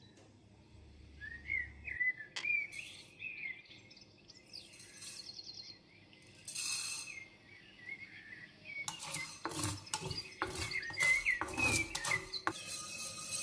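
Small birds chirping in short warbling calls, with a brief hiss about halfway through and a run of sharp knocks and clicks in the last few seconds.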